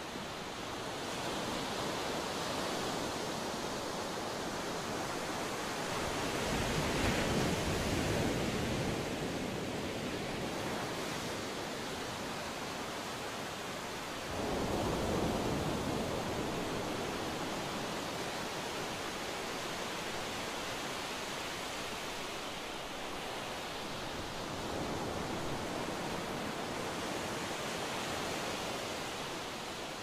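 Ocean surf: a steady rushing wash of waves that swells louder a few times, most sharply about halfway through.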